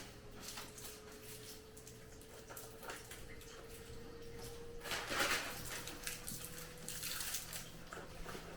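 Candy and its packaging being handled: scattered light clicks and rustles, with a louder rustle about five seconds in, over a faint steady hum.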